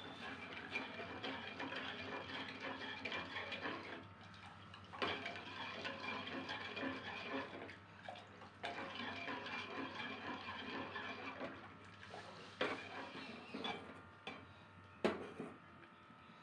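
Liquid splashing and sloshing in kitchen vessels in stretches of a few seconds with short pauses between them, then a few sharp knocks of utensils on pots or bowls near the end.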